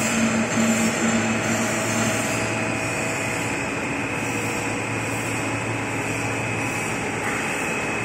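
XHD-2600mm EVA cast film line running: a steady industrial machine hum and whirr with several constant tones over a broad hiss. A low droning tone pulses on and off for the first couple of seconds, then drops away.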